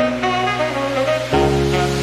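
Background instrumental music with saxophone and brass, in a jazzy style.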